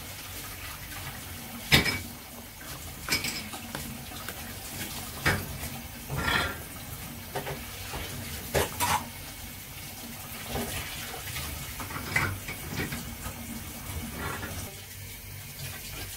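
Metal ladle clinking against a stainless-steel soup pot and serving bowls at irregular intervals, with soup sloshing as it is ladled out, over a steady low hiss.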